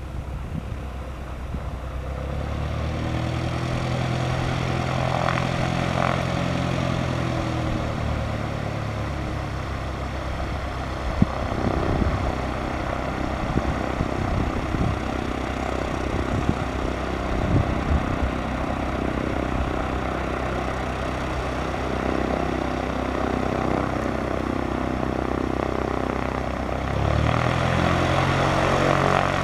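The Lycoming O-320 four-cylinder engine and propeller of a 1981 Cessna 172P Skyhawk running at low taxi power, a steady hum that picks up in pitch and loudness near the end as the throttle is opened a little. A few sharp knocks come midway.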